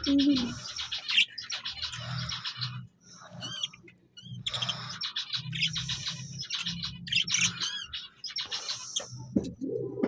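Caged birds calling: rapid, repeated high chirping and chattering from small parrots, with pigeons cooing low underneath.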